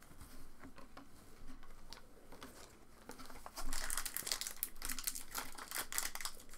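Trading-card pack wrapper crinkling and tearing as it is opened by hand, starting about halfway through; before that only a few faint ticks.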